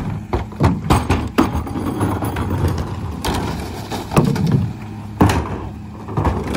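Plastic recycling carts knocked and banged as they are tipped by hand into the rear hopper of a McNeilus split-body rear-loader garbage truck, several sharp thuds over the truck's steady idling diesel engine.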